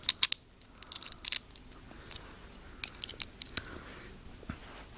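Small plastic Lego pieces clicking as smooth 2x2 tiles are pressed onto the corners of a plate: short sharp clicks in a few quick clusters with pauses between.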